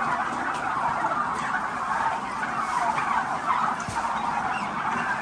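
A large flock of domestic turkeys calling together: a steady, dense chatter of many overlapping calls.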